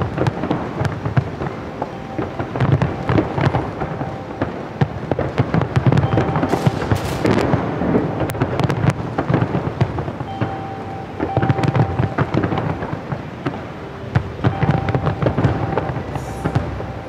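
Large fireworks display: many aerial shells bursting in continuous barrages, deep booms under dense crackling.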